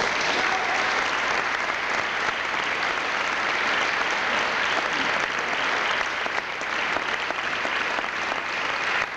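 Audience applauding, the clapping starting all at once and going on steadily.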